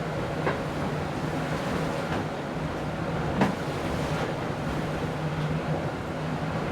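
Wind and rushing water on an IMOCA racing yacht under sail, with a steady low hum and one sharp knock about three and a half seconds in.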